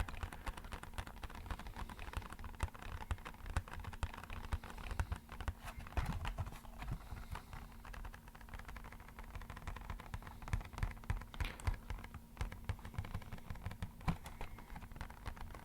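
Rapid, irregular tapping on an empty box, a dense patter that sounds like rainfall.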